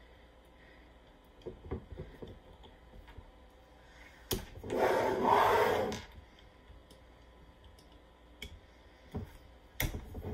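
Swing-top glass bottles being closed by hand: the metal wire bails and stoppers click sharply as they are pressed shut, a few separate clicks with the strongest near the middle and near the end. In the middle a louder rubbing, scraping noise lasts a little over a second.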